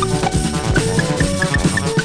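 Background music with a steady beat and a short-note melody.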